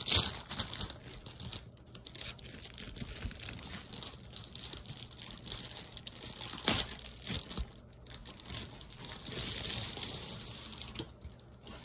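Packaging crinkling and rustling as it is pulled off a boxed animated pumpkin, with frequent sharp crackles.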